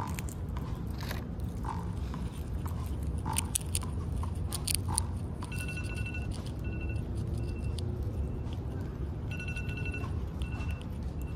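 A squirrel chewing and cracking peanuts, with irregular short crunches and nibbling clicks. From about halfway a high tone repeats in short bursts, over a steady low background rumble.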